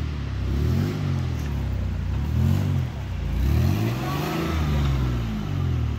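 A 4x4's engine revving up and down about three or four times as the vehicle works for traction on a snowy, rocky trail, stuck and being backed up and driven forward again.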